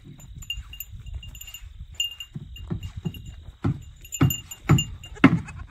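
Goat kid being walked on a leash over rocky ground: short crunching steps on gravel, several louder ones in the second half, over a low rumble. A small bell tinkles lightly and irregularly throughout.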